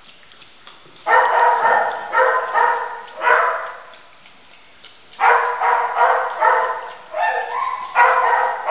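Staffordshire bull terrier lapping water fast from a stainless steel bowl, drinking greedily while starved and desperate for water. It drinks in two stretches, starting about a second in and again about five seconds in, with a short pause between.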